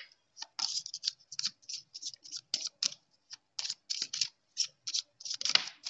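Tarot cards being shuffled by hand: a quick, irregular run of crisp papery clicks and flicks, about three or four a second.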